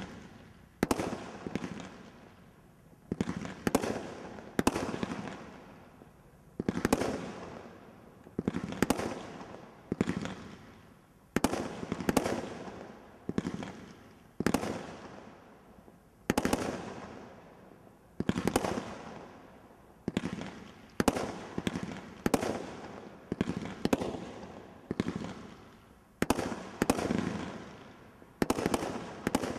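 Brothers Pyrotechnics 'Bang' 19-shot Category 3 combination Roman candle firing: a steady string of sharp bangs, roughly one a second, each one fading away before the next.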